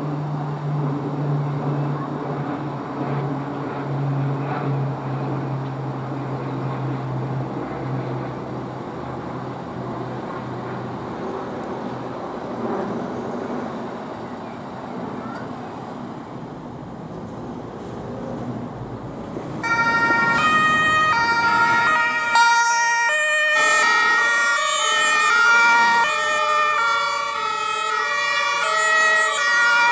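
A heavy truck's diesel engine running as it moves off, its low drone fading. About two-thirds of the way through, several German two-tone emergency sirens start up at once, each switching back and forth between a high and a low note, overlapping out of step with one another.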